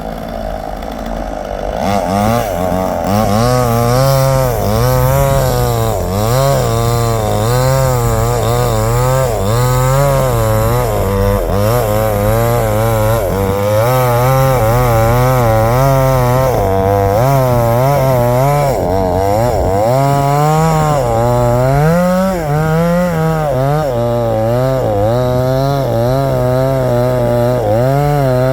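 Chainsaw cutting a tree, its engine pitch rising and falling about once a second as the chain bites into the wood. It runs lower and quieter for the first two seconds, then comes up to full cutting speed.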